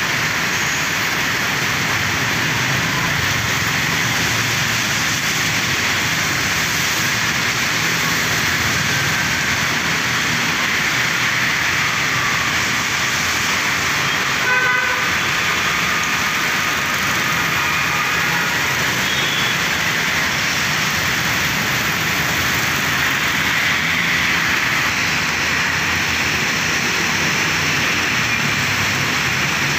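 Steady rain and wet-road traffic: a continuous hiss of rain and tyres on a wet street. A vehicle horn toots briefly about halfway through.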